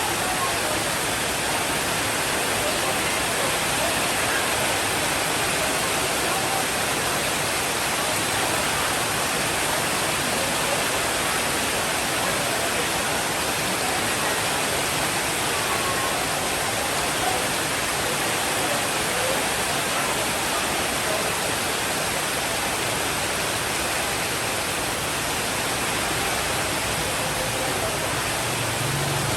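Steady heavy rainfall, a dense, even hiss with no distinct drops or thunder standing out.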